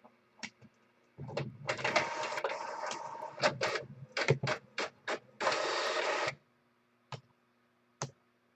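Rustling and short scrapes of trading cards and their plastic holders being handled: two longer rustles with several quick clicks and scrapes between and after them.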